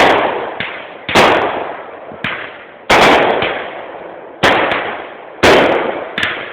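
Fireworks going off: five loud bangs about a second or so apart, each trailing off in a fading echo, with fainter pops between them.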